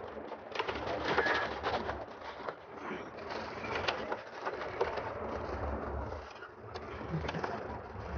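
Pigeons cooing, with scattered clicks and rustling from handling.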